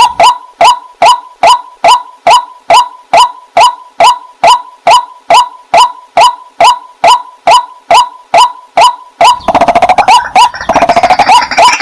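Water hen calling: a long, even series of short, clipped notes, about two a second, each hooking slightly upward. About nine seconds in, the calling turns faster and harsher.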